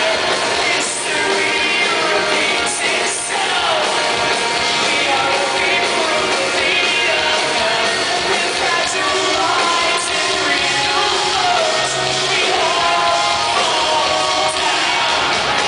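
Live rock band playing loud through the PA, with electric guitar and a singer's vocals over it.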